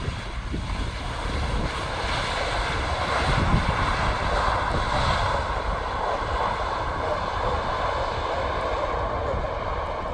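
Airliner's engines heard as a steady rushing noise as it passes on its approach to land, a little louder a few seconds in.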